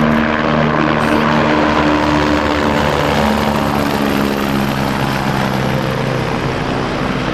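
Twin turbofan engines of a US Air Force C-32A (Boeing 757) running as the jet rolls along the runway: loud, steady jet noise with several low hum tones that drift slowly in pitch, easing off slightly near the end.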